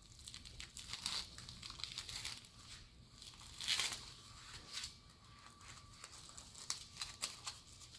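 Small plastic bags of diamond-painting drills crinkling and rustling as they are handled and taken out of an organza pouch, with scattered light crackles and a louder rustle a little under four seconds in.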